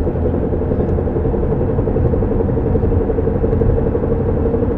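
Car on the move with a steady, slightly pulsing hum from the driver-side front wheel area over low road rumble. The noise grows louder with speed and does not change with braking or turning; the owner cannot tell whether it is a bad tire or a drivetrain fault.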